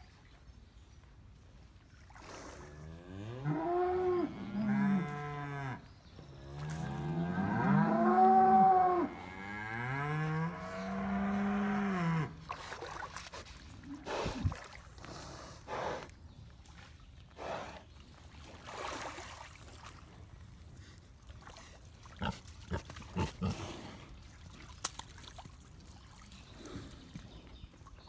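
Water buffalo lowing: a string of about six short, arching moo-like calls over some ten seconds. These are followed by scattered small splashes and knocks of mud and water.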